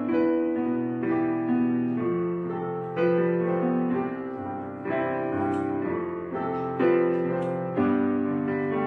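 Background piano music: sustained notes and chords that change about once a second.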